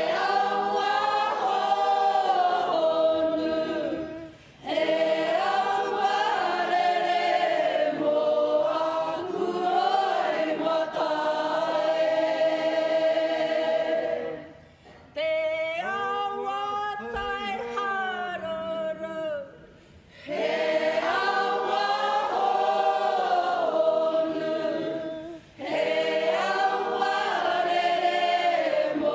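Māori kapa haka group singing a waiata together, women's voices to the fore, in long phrases broken by short pauses for breath, with a softer passage about halfway through.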